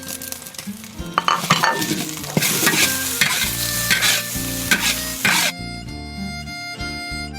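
Food sizzling and frying in a wok while a metal spatula stirs and scrapes it, with sharp clicks of the spatula against the pan. The frying stops about five and a half seconds in.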